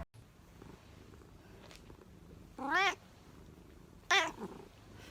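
A cat meowing twice, two short meows about a second and a half apart, the first a little longer than the second.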